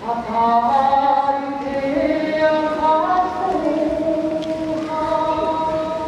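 Kagura song: chanting voices singing long held notes that step slowly up and down in pitch.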